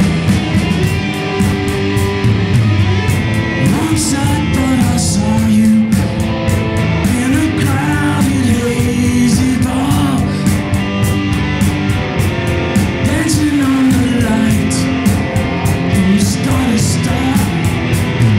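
Live rock band playing: electric guitars, bass guitar and drums, with a man singing lead over them from a few seconds in.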